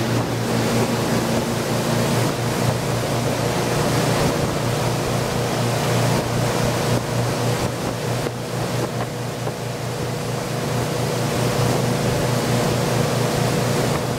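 Twin MerCruiser 7.4-litre MPI V8 inboard engines running steadily at speed with the boat up on plane, under a steady rush of wind and water.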